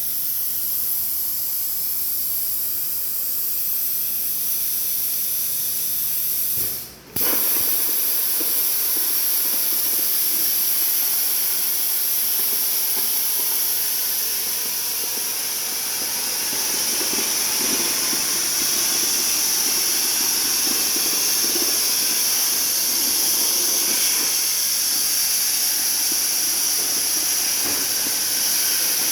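CNC plasma torch cutting steel plate: a steady loud hiss of the arc and air jet. It cuts out briefly about seven seconds in and starts again.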